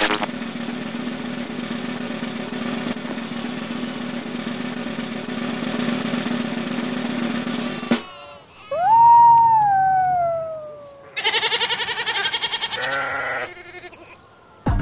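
A long snare drum roll, then a single loud howl that leaps up and slides slowly down from the cartoon dog, then a quavering cartoon sheep bleat near the end.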